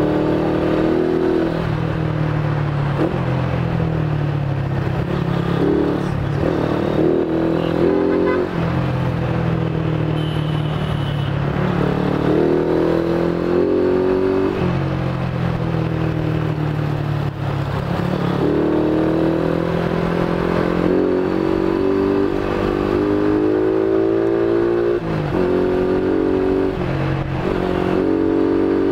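Big-bore Yamaha Exciter 135 single-cylinder four-stroke engine pulling hard under way. Its pitch climbs through each gear and drops back at each shift, several times over.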